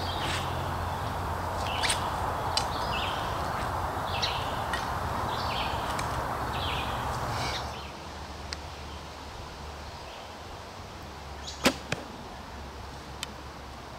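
A shot from a 50 lb Black Widow PLX longbow: the string is released with one sharp snap about twelve seconds in, followed closely by a fainter click. Before that there is a steady hiss with short chirps and small clicks while arrows are pulled out of a foam target.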